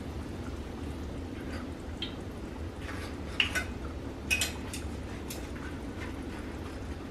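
Hot oil sizzling steadily in a skillet as tortillas fry into taco shells, with a few sharp clicks of metal tongs against the pan and plate, the loudest about three and a half and four and a half seconds in.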